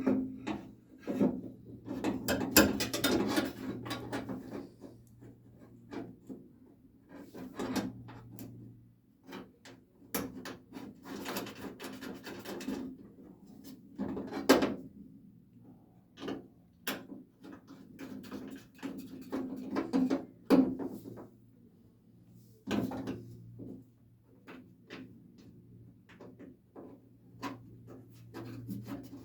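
Door latch and its linkage rod being worked through the inside of a 1968 Camaro's steel door shell: irregular clunks, clicks and scrapes of metal parts knocking against the sheet metal, with the densest scraping in the first few seconds and around the middle.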